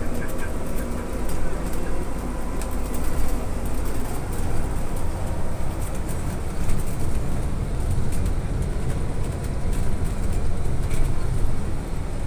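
Cabin noise inside a moving trolleybus: a steady low road rumble with frequent light rattles and clicks.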